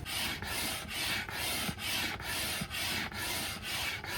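Rhythmic scratchy rubbing strokes, a little over two a second.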